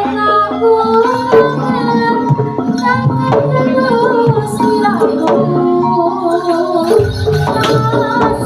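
Jaranan music: a gamelan ensemble plays steady pitched metal notes under a melody, with hand-drum strokes.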